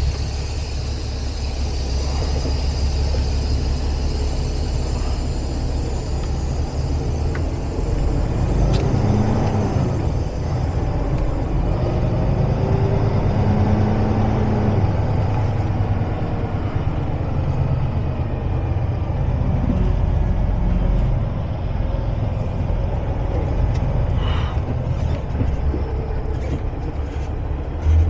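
Semi-truck diesel engine running at low speed, its pitch rising and falling a few times in the middle as the truck is driven.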